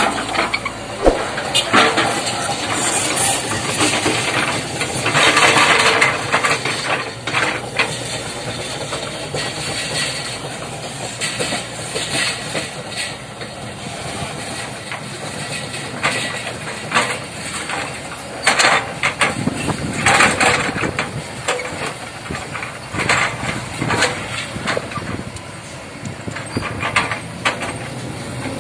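Hitachi log-grapple excavator's diesel engine running under load, its level rising and falling as the machine works. Scattered knocks and clatter come from logs being moved and stacked.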